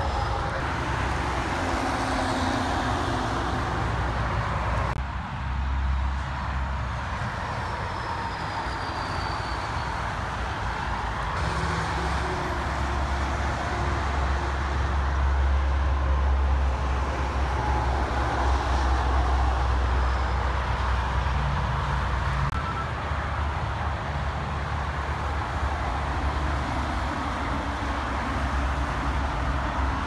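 Highway traffic: a steady rush of tyres and engines, with the low diesel rumble of heavy dump trucks going by, loudest in the middle stretch.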